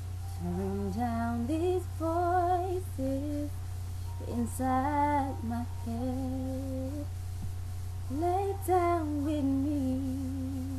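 A woman singing solo without accompaniment: slow vocal runs and long held notes, over a steady low hum.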